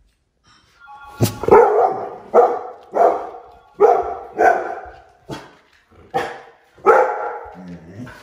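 Chocolate Labrador retriever barking excitedly to greet its owner coming home: about ten loud barks, less than a second apart. A sharp knock comes just before the first bark, about a second in.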